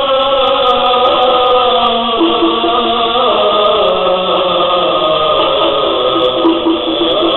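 Background music of chanted voices holding long notes and sliding between them. A pulsing note joins about two seconds in.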